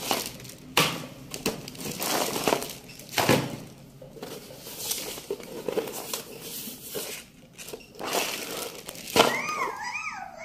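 Clear plastic bags of small parts crinkling and rustling as they are handled, with a paper instruction sheet rustling too. A young child vocalizes briefly near the end.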